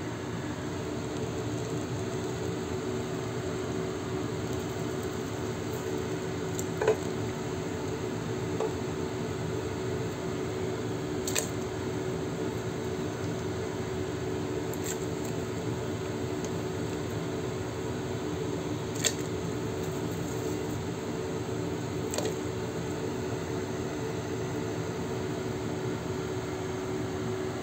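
Steady machine hum with a rushing noise, broken by a few faint clicks and clinks spaced through it.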